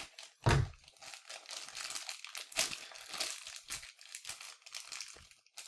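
Plastic toy packaging crinkling and rustling in irregular crackles as it is worked open by hand, with one louder thump about half a second in.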